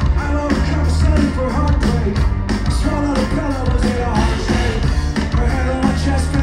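Live rock band playing loud at a concert, with heavy drums and bass and singing.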